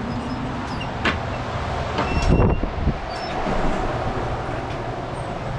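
A motor vehicle's engine running steadily, with a few knocks and clatters about one to three seconds in.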